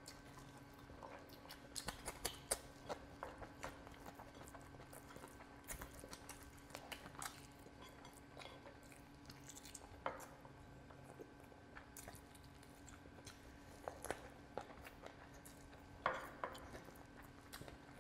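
Close-miked eating by hand: wet chewing, lip smacks and sticky finger sounds as chicken curry and rice are mixed and eaten. Short, irregular clicks and smacks come throughout, with louder ones near the start, the middle and late on, over a faint steady hum.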